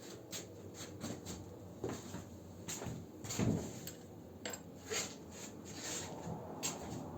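Tools and metal engine parts being handled on a workbench: a string of irregular clicks, clinks and knocks, the loudest about three and a half seconds in.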